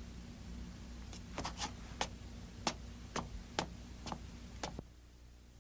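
Footsteps: about eight hard, evenly spaced steps, roughly two a second, over a faint low hum, stopping near the end.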